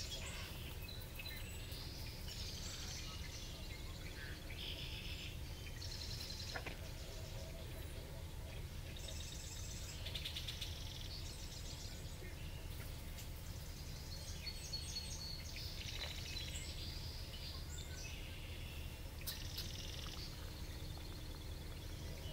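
Several small songbirds singing and calling in short phrases and trills, one after another, over a steady low background rumble.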